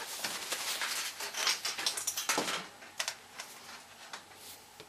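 Paper rustling by hand with light taps and clicks, busiest in the first two and a half seconds, then a few fainter clicks.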